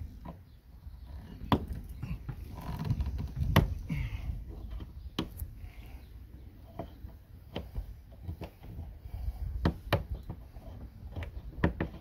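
A flat-blade screwdriver clicking and knocking against a rusted, seized cam lock on an RV storage-bin door as it is forced to turn: several scattered sharp knocks over a low background rumble.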